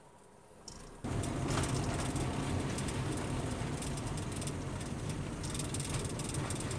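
Honda Civic being driven, heard from inside the cabin: a steady low engine hum with a broad road and tyre hiss. It comes in suddenly about a second in, after a near-quiet start.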